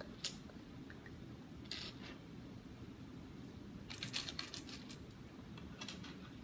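Small plastic Lego pieces clicking and rattling against each other as they are handled, in a few short scattered bursts, the busiest about four seconds in.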